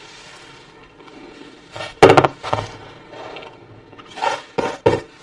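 Handling noise as a smartphone is set down on a wooden tabletop: a sharp knock about two seconds in, then a few more bumps and scrapes near the end.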